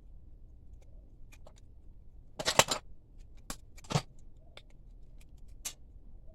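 Scattered clicks and taps of small hard objects being handled, with a short rattling cluster about two and a half seconds in and a sharper knock about four seconds in.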